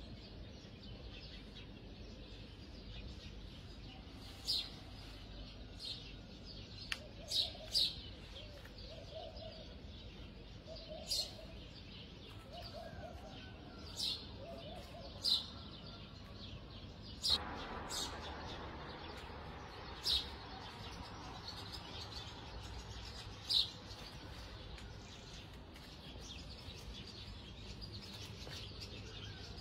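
A bird chirping: short, high single chirps every one to three seconds, over a faint low background hum.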